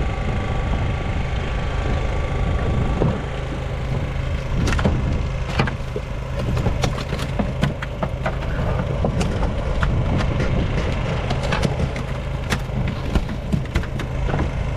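A boat's engine running steadily at a low idle hum, with irregular sharp knocks and clicks on the boat from about five seconds in.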